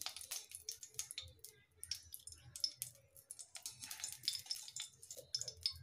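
Faint, irregular ticking and crackling of cooking oil heating in a kadai.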